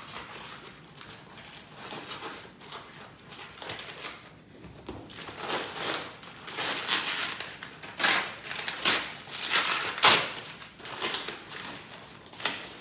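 Brown kraft paper wrapping being torn and crumpled by hand as a parcel is unwrapped, an irregular crinkling and rustling that is loudest about eight to ten seconds in.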